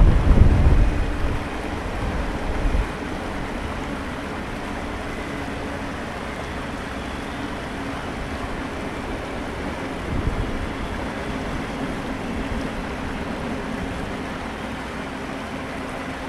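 The last cars of a Norfolk Southern intermodal freight train rumble past and fade within the first few seconds. After that comes a steady rush of flowing creek water and wind on the microphone, with a brief low gust about ten seconds in.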